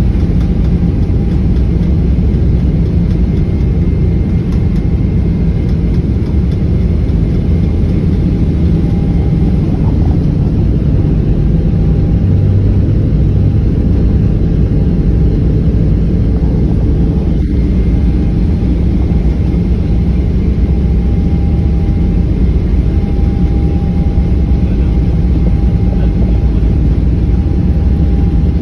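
Steady, loud engine and air noise inside the cabin of a Boeing 777-300ER, whose GE90-115B turbofans are running, with a faint high whine that comes and goes.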